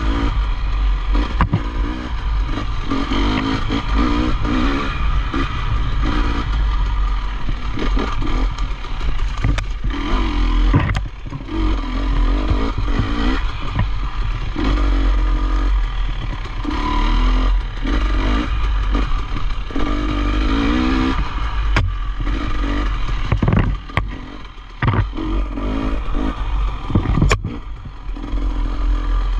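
Dirt bike engine revving up and down repeatedly as it is ridden, with clatter and several sharp knocks.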